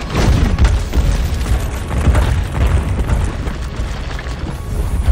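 Film sound effects: a deep booming rumble with crashing impacts, concrete and floor breaking up as a body is smashed downward through the floors by a glowing energy force.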